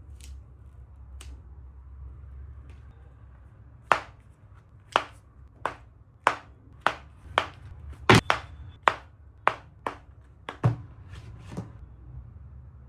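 A series of about fifteen sharp clicks and taps, roughly two a second, starting about four seconds in and stopping near the end: a metal phone mock-up being handled, its parts clicking and knocking.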